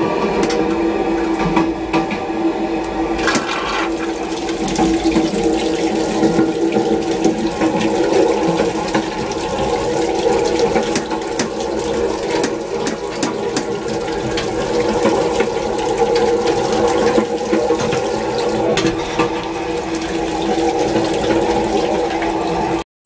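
Older train toilet flushing with its foot pedal: water rushes and swirls around the bowl for about twenty seconds. A steady train hum runs underneath.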